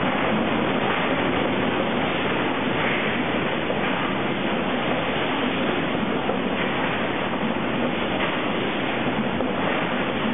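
Steady din of a sawmill log infeed running: chain conveyor and log-handling machinery carrying logs through a scanner.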